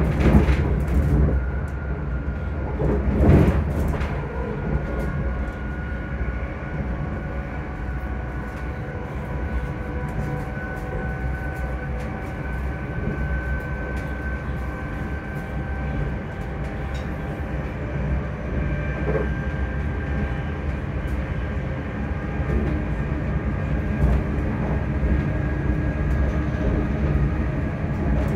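ScotRail Class 385 electric multiple unit heard from inside the carriage: traction motors whine in several thin tones that drift slowly in pitch, over the steady rumble of the train running on the rails. Two heavy knocks come in the first few seconds.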